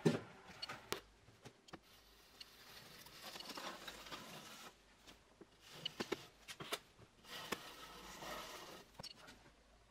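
Small metal spatula scraping along a metal U-profile rail freshly bonded with epoxy adhesive, in two stretches of soft scraping, with scattered small clicks and taps of tool on metal and a sharper knock right at the start.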